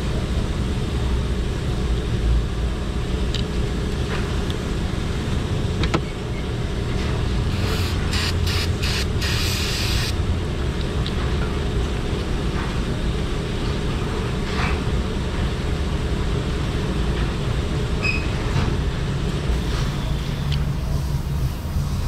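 Steady low rumble of a running vehicle engine, with paper towels rustling and scrubbing on a removed throttle body and a short burst of hiss about eight seconds in.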